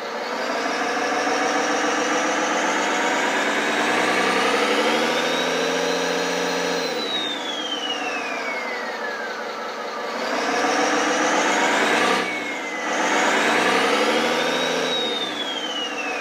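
Chinese RC-truck sound module playing a simulated diesel truck engine through its speaker, revving up and back down twice. A turbo whistle rises with each rev and glides down as the revs fall. There is a brief hiss about twelve seconds in.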